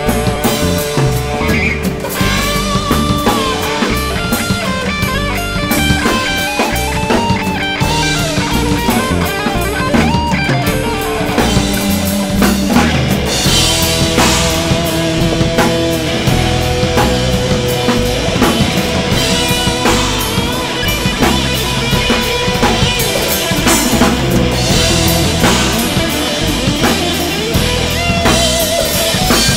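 Instrumental rock jam by a live band: drum kit, electric bass and two electric guitars. A lead guitar line with bending notes runs over the rhythm in the first half, giving way to held notes and heavier cymbals in the second half.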